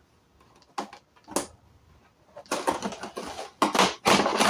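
Packing tape being worked off the side of a large cardboard toy box: two sharp clicks, then from about halfway a run of scraping, tearing noises against the cardboard.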